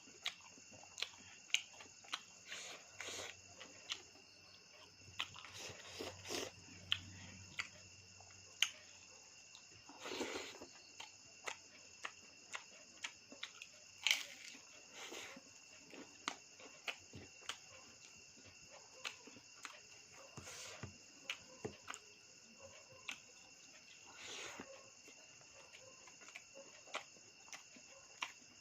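Close-up eating sounds: chewing, lip smacks and small clicks at irregular intervals. Behind them runs a steady, high-pitched chirring.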